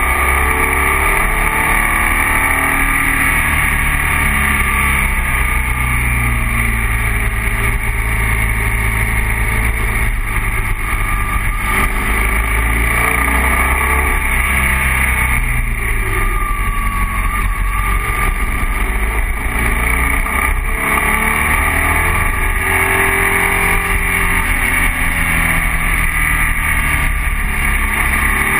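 BMW 1200 boxer-twin motorcycle engine running steadily while riding, heard from a camera mounted on the bike with wind and road noise over it.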